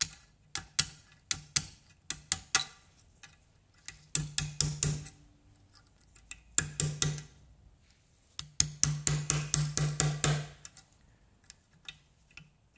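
Hammer blows on metal: scattered single strikes, then three quick runs of blows, the last lasting about two seconds. The old rear drive-shaft bearings of a Suzuki LT50 quad are being knocked out.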